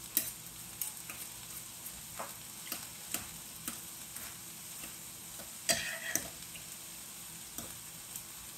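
Two forks clinking and scraping irregularly against a crock pot while shredding cooked chicken breast in its juice, the loudest clicks about six seconds in, over a steady sizzle of peppers and onions sauteing in a pan.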